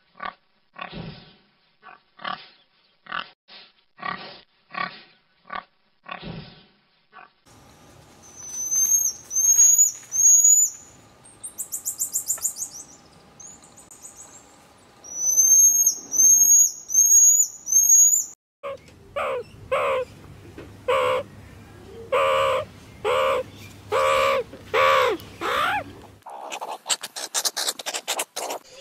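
Pigs grunting in short, regular grunts, then a common marmoset's high-pitched rising chirps and twitters. After that comes a series of pitched calls from another animal, about one a second, ending in a burst of rapid clicking.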